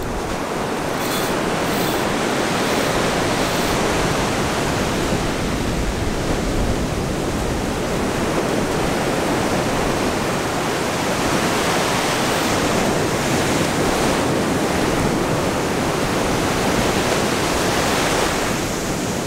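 Steady roar of surf breaking and washing up the beach.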